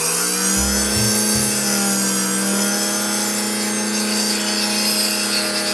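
Dremel rotary tool running through its flexible shaft, its pitch rising briefly at the start as it comes up to speed, then holding a steady whine.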